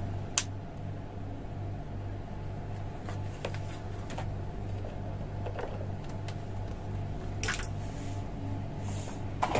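Small exhaust fan motor running slowly on a reduced 0.4 µF run capacitor, giving a steady low electrical hum. A few sharp clicks and knocks cut in, the last ones near the end as the plug is handled.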